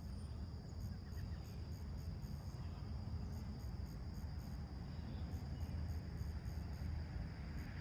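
Summer-morning outdoor ambience: insects trill steadily, with a high chirp pulsing about three times a second, over a low rumble of distant traffic. A hiss swells near the end, like a vehicle approaching.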